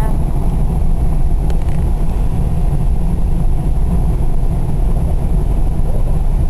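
Steady low rumble of a car driving on the highway, heard from inside the cabin: road and engine noise.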